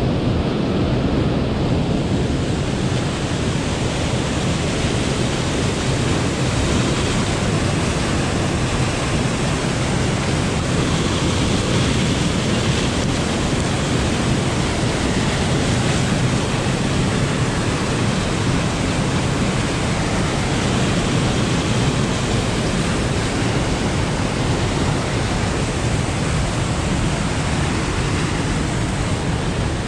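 Steady, loud rush of fast-flowing river water, an even noise with no breaks.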